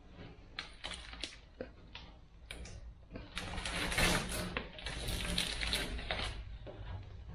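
Blue painter's masking tape being peeled off a car's freshly spray-painted body panel: a few short rips in the first second or so, then longer, louder tearing pulls from about three and a half to six seconds in.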